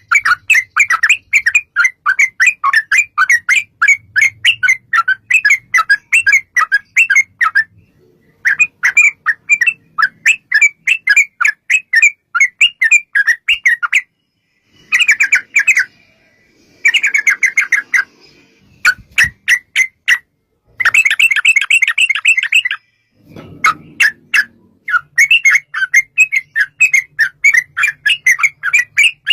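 Yellow-vented bulbul chattering in long, fast runs of repeated notes, about four a second, broken by several short pauses. This is the excited 'ropel' chatter used to provoke other bulbuls into answering.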